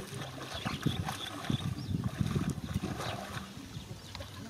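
Hands sloshing and squelching in a shallow muddy pool while groping through the mud for fish, a busy run of irregular splashes through the middle.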